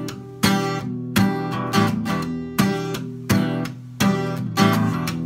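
Acoustic guitar strummed in a steady rhythm between sung lines, each stroke's chord ringing on until the next, with a strong stroke roughly every three-quarters of a second.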